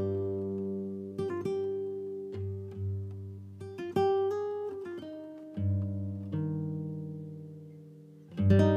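Background music: acoustic guitar playing plucked notes and chords that ring out and fade, with a louder chord struck near the end.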